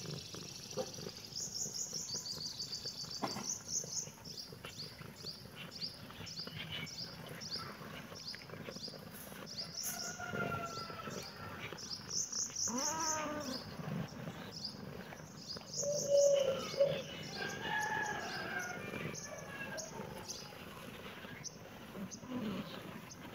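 Small birds chirping repeatedly in short high notes, with a few longer, louder arching calls about thirteen and sixteen seconds in.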